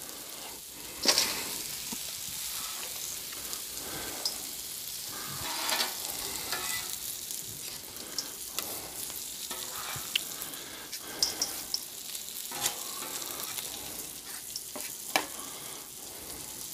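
Ribeye steak sizzling steadily on a hot Blackstone steel flat-top griddle, with metal spatulas scraping and clicking against the griddle surface every few seconds as the Brussels sprouts are scooped off.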